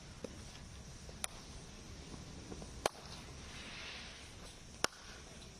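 Sharp cracks of cricket bats hitting balls in practice nets: three loud cracks about one and a half to two seconds apart, plus a fainter one just before them, over steady background noise.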